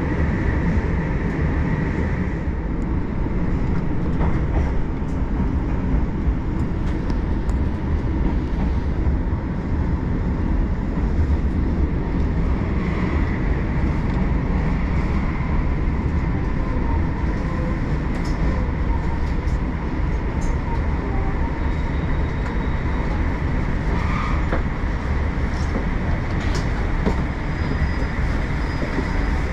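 JR Hokkaido passenger train running on rails: a steady, unbroken rumble with a faint high hum.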